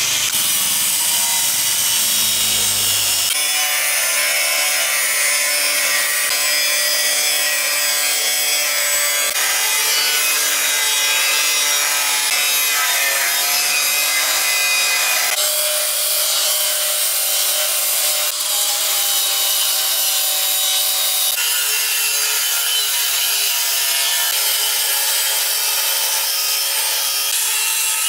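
A power tool grinding against metal: a loud, steady, hissing rasp with a wavering motor whine. The sound changes abruptly several times.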